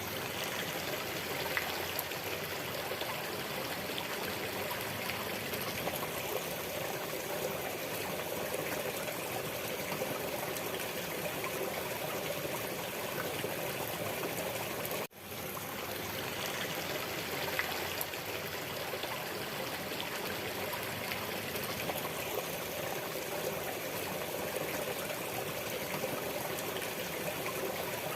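Waterfall water flowing and splashing in a steady rush. It cuts out for an instant about halfway through and fades straight back in.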